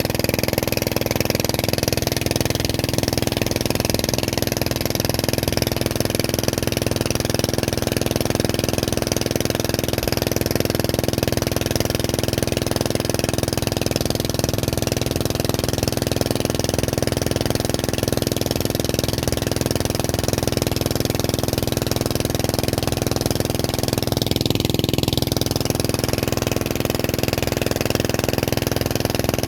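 A small engine running steadily at an even speed, noisy and unbroken, with a constant hum.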